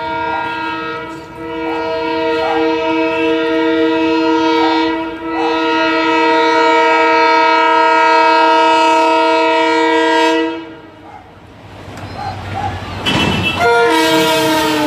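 Multi-tone air horn of an Indian Railways WDG-4D diesel locomotive blown in long blasts, with two brief breaks, then cut off about ten seconds in. A loud rush of train noise follows, and the horn sounds again near the end as the train runs through the station without stopping.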